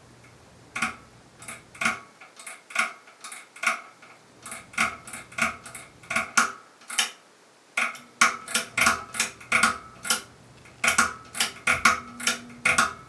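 Pull-chain speed switch on a 1988 Homestead Metro ceiling fan being tugged over and over: a run of sharp metallic clicks and clinks, a few a second, starting about a second in. The switch is stiff and not catching properly, which the owner puts down to the fan sitting unused for about 20 years.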